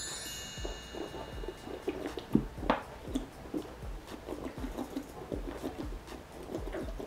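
A man chugging soda straight from a 2-liter plastic bottle: a quick, uneven run of gulps and swallows, one louder gulp a little over two seconds in.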